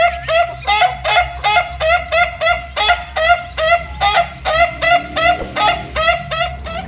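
Chickens calling in a fast, even run of short clucking calls, about three a second.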